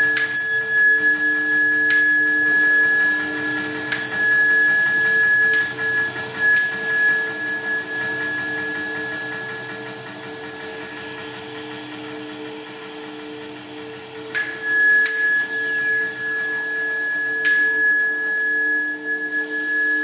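A small metal Buddhist ritual bell struck with a mallet in two series of strikes, a few at the start and a few more about fourteen seconds in, each ringing on with a clear, high, steady tone. A steady low drone runs underneath.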